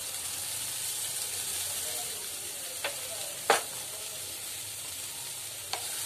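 A metal ladle scooping cooked cauliflower fry out of a kadai, knocking against the pan and plate in three sharp clicks, the loudest about midway, over a steady hiss.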